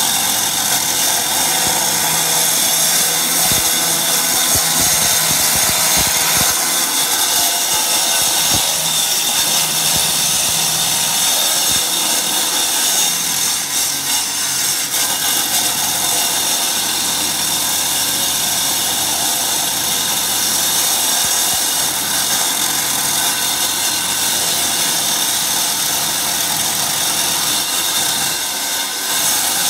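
A corded electric power tool running continuously, cutting into the concrete ground with a steady grinding noise.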